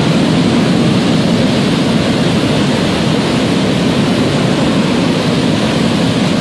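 Muddy floodwater rushing in a torrent down a river channel: a loud, steady rush of water.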